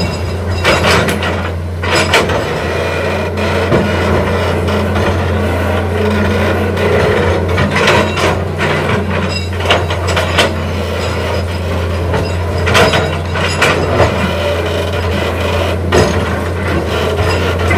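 Excavator loading sand into a truck: a heavy diesel engine running steadily, with knocks and clatters every few seconds.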